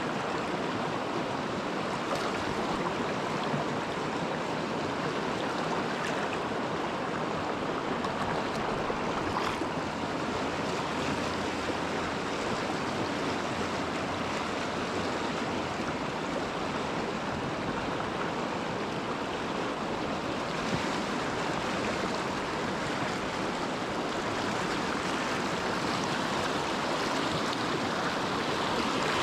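River current rushing steadily over stones, an even unbroken water noise.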